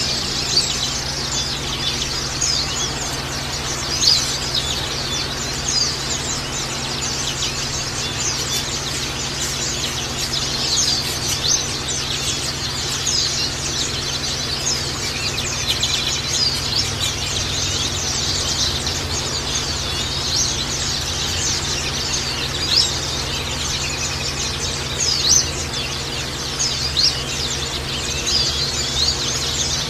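Pleci (white-eye) birds chirping and twittering continuously, a dense stream of short high notes, over a steady low hum.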